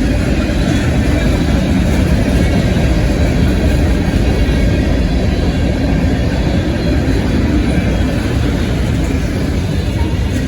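Freight train rolling past, a steady low rumble of wheels and cars on the rails.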